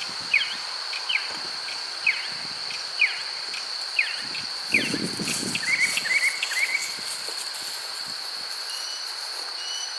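Steady high insect trill, like a cricket's, with a bird repeating a short falling chirp about once a second, changing to a few quick rising chirps around six seconds in. A brief low rustle about five seconds in.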